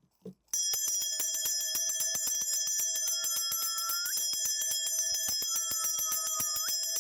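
A cluster of shaman's ritual bells shaken fast and steadily, a dense jingling that starts about half a second in and keeps up a quick, even rhythm, as in summoning the spirits for a divination. Twice a longer single tone is held over the jingling.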